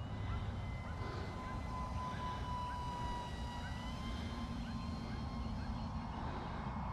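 Electric motor and propeller of a small sub-250 g RC flying wing whining steadily in flight, the pitch shifting slightly about four seconds in as the throttle changes.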